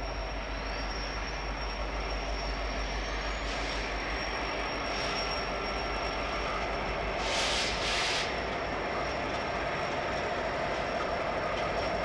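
BNSF EMD SD70ACe diesel locomotive leading a freight train, running as it approaches, with engine and rail noise that slowly grows louder. Two short hisses come about seven and eight seconds in.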